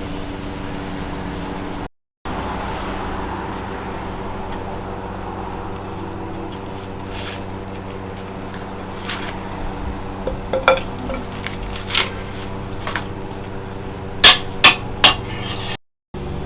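Steady machine hum under scattered metallic clinks and taps, ending in three sharp metal-on-metal strikes about half a second apart near the end.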